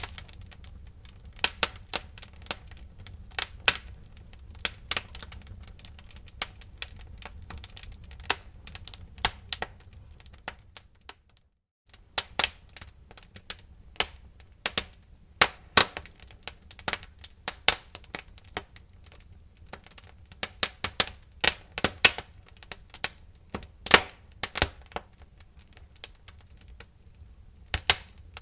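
Wood fire in a fireplace crackling: irregular sharp pops and snaps over a low, steady rumble. The sound cuts out for about a second near the middle.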